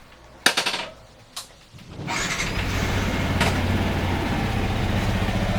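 A sharp clunk, then a vehicle engine starts about two seconds in and settles into a steady idle.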